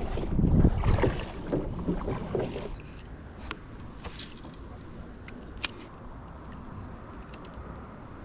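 Water sloshing and splashing against a kayak for the first few seconds, settling into quiet lapping water and light wind with a few sharp clicks.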